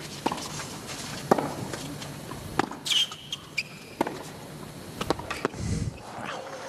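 Tennis rally on a hard court: sharp pops of the ball coming off racket strings and bouncing on the court, about a second apart.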